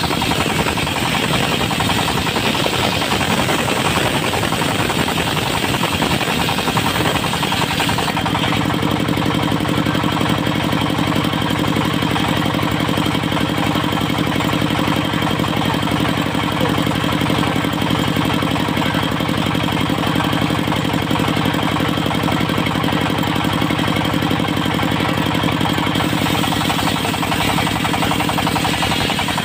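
Locally built mobile circular sawmill running, its diesel engine giving a steady knocking drone. About eight seconds in, the high-pitched part of the sound drops away, leaving the engine's steady hum, and it comes back near the end.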